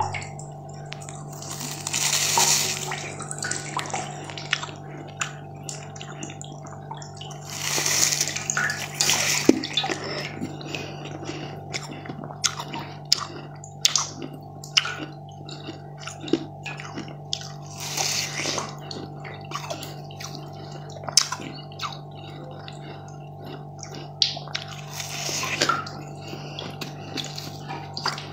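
Close-up mouth eating sounds: biting and chewing a crunchy white sweet, with many small sharp crackles and a few louder crunches every several seconds, over a steady low hum.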